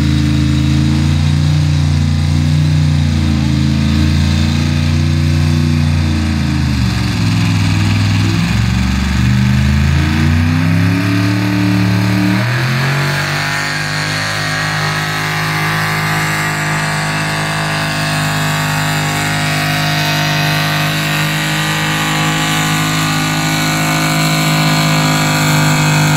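Gasoline engine of a 1970s Ford 4x4 pickup pulling a weight-transfer sled in a truck pull, loud throughout. Its pitch sags and wavers as the sled loads it, then climbs about twelve seconds in and holds steady at high revs for the rest of the pull.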